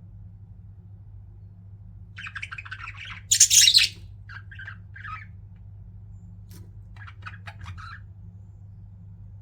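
Pet budgerigars chattering and chirping in short bursts, with one loud harsh squawk about three and a half seconds in and a few scattered chirps after it, over a steady low hum.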